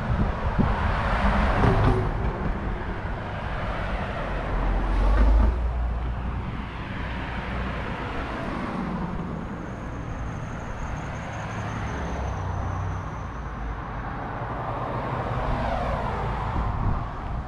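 Road traffic on a town street: cars passing one after another, each swelling and fading over steady traffic noise. The loudest pass is about five seconds in and carries a deep low rumble.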